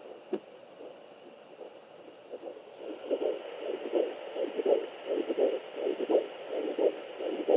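Sonoline B fetal Doppler's speaker picking up the mother's own pulse: a rhythmic beat over a steady static hiss, starting about two seconds in. The beat is slow, the maternal heart rate rather than the baby's.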